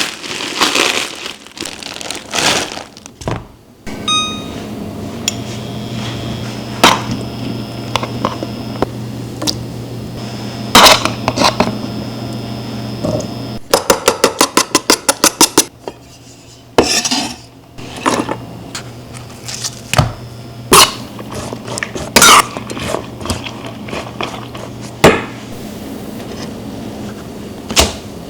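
Kitchen utensils and dishes clinking and knocking during cooking, with a steady low hum underneath for most of the time. About halfway through comes a quick run of about a dozen even strokes lasting a second and a half.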